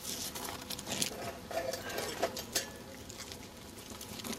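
Scattered sharp clicks and rustling of clothing and gear being handled, densest in the first two and a half seconds, with brief faint voices.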